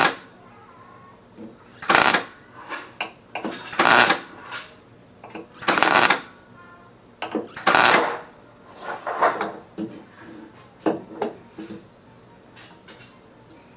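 Metalwork on a steel car fender panel: five loud, short strokes about two seconds apart, with fainter clicks and knocks between them, and only small sounds after about eight seconds in.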